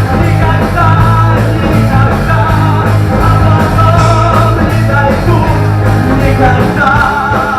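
Loud rock band music in the closing instrumental stretch of the song: sustained guitar lines over drums and a steady bass.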